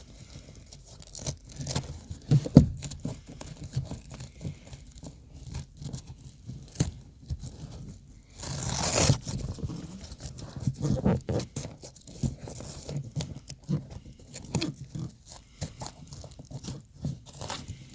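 Hands working a fabric truck seat cover: rustling and scattered small knocks as the straps are pulled tight, with about a second of rasping hook-and-loop Velcro near the middle.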